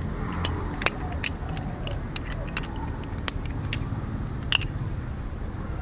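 Balisong butterfly knife flipped through a combo: its metal handles and blade click and clack against each other at irregular intervals, the loudest click about four and a half seconds in.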